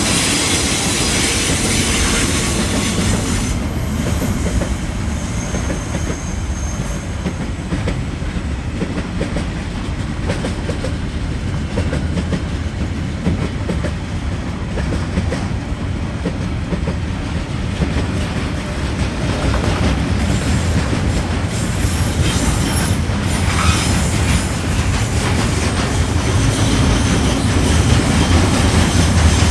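Freight train rolling past, a steady low rumble of wheels on the rails with a few brief high squeals.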